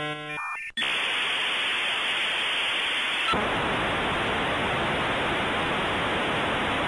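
Television static: a steady white-noise hiss that becomes fuller and deeper about three seconds in. It follows a few short electronic beeps at the very start.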